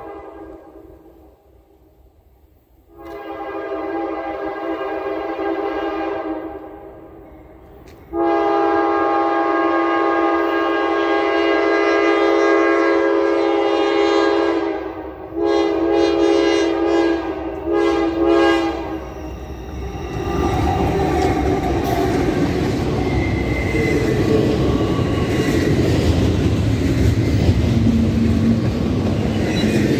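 Diesel freight locomotive's air horn sounding the grade-crossing signal, long, long, short, long, as the train approaches a road crossing. From about twenty seconds in, the horn gives way to the steady rumble and wheel noise of a double-stack intermodal train passing close by.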